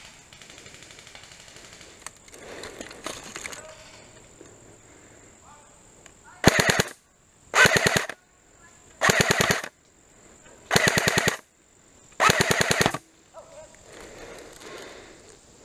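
Airsoft electric gun, a King Arms Thompson replica, firing five short full-auto bursts about a second and a half apart.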